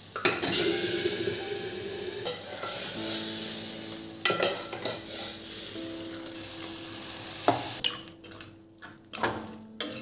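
Hot tadka (oil with red chillies and spices) sizzling in a steel ladle and as it is poured into cooked dal. The sizzle is loud at first and dies away after several seconds, followed by a few sharp clinks of metal utensils, with soft background music.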